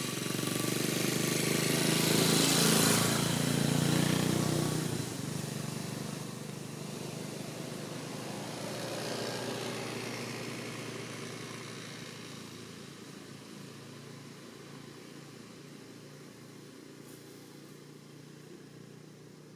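A vehicle engine passing by, a steady hum that swells over the first few seconds and drops off about five seconds in. A smaller swell follows around nine seconds, and then it fades away slowly.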